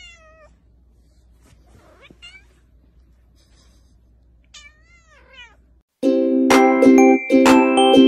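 A tabby kitten meowing several times, short calls that rise and fall in pitch. About six seconds in, loud background music starts suddenly.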